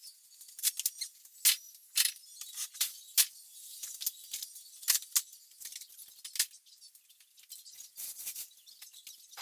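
Stored belongings and plastic storage tubs being handled and shifted: scattered light clicks, knocks and rustles, a few sharper ones standing out.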